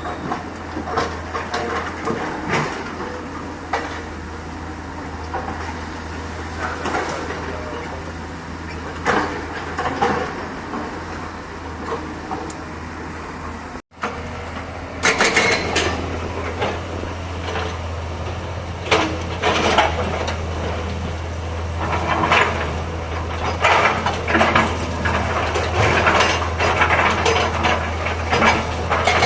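Hydraulic excavator's diesel engine running steadily with a low hum, under irregular clanks and knocks from the machine working, which come thicker in the second half. The sound drops out for an instant about 14 seconds in.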